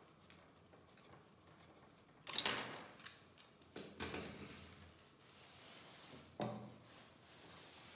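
Handling noises on a workbench: a loud clatter about two seconds in, then knocks and rubbing around four and six and a half seconds as side cutters are put down and a MIG torch hose with its connector is picked up and moved.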